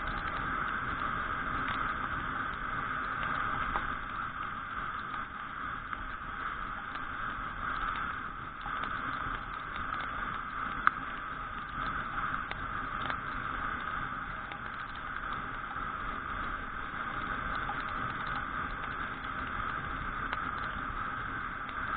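Steady riding noise from a Suzuki Address V125G scooter on a wet road: wind and tyre rush with the single-cylinder engine running underneath. A single sharp click about eleven seconds in.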